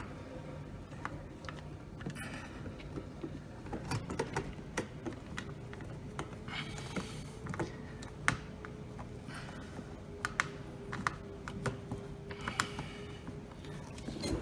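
Hands working inside a dishwasher, pushing hoses and plastic parts aside: scattered light clicks and taps with a couple of short rustling scrapes.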